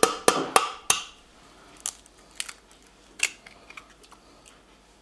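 Egg shell knocked against the rim of a stainless steel Thermomix mixing bowl: four quick sharp taps with a short metallic ring in the first second. A few softer clicks follow as the shell is broken open over the bowl.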